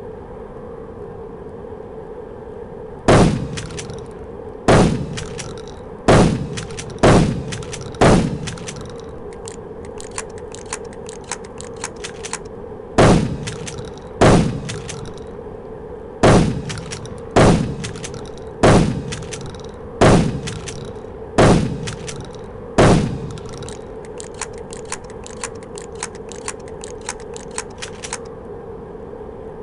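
Mossberg 500 pump-action shotgun fired thirteen times in two strings, one shot every second or so, each shot ringing out briefly. Runs of quick, light metallic clicks fall between and after the strings. A steady hum runs underneath.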